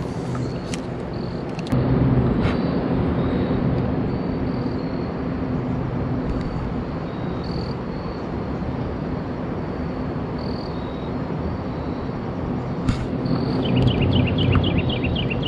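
Steady outdoor background noise with a low hum, which grows louder about two seconds in. Short high chirps recur through it, and a quick run of chirps comes near the end.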